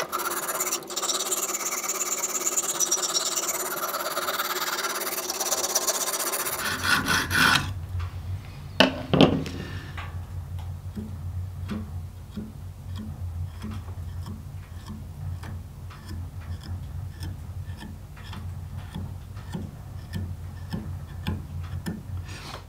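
Extra-coarse stone of a Lansky guided-rod knife sharpener rasping in quick repeated strokes along the reverse side of a fillet knife's edge to raise a burr. After about seven seconds the strokes stop, a couple of sharp knocks follow, and only a low steady hum with faint ticks remains.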